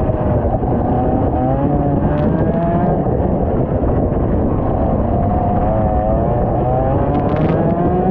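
IAME X30 125cc two-stroke kart engine at racing speed, its pitch dipping and rising through corners, then climbing steadily near the end as it accelerates. A heavy rumble of wind and track noise on the onboard microphone runs under it.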